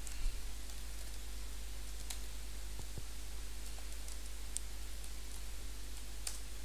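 Computer keyboard keystrokes: a few sharp, scattered clicks spread over several seconds, over a steady low hum.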